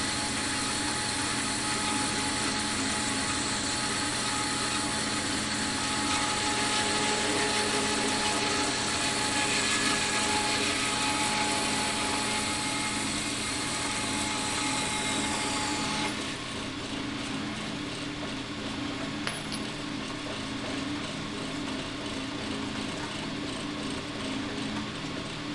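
Metal-cutting bandsaw running through a piece of bar stock, a steady motor hum with a hiss of the blade in the cut. The hiss drops away suddenly about sixteen seconds in as the blade finishes the cut, and the saw keeps running more quietly.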